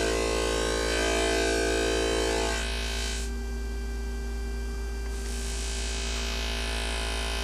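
Modular synthesizer tone from a sawtooth run through a Magnus Danielson sawtooth phase shifter module, holding one steady pitch over a low hum. About two and a half seconds in its buzzy upper harmonics fall away, leaving a softer, rounder tone as the wave is shaped toward a near-sine.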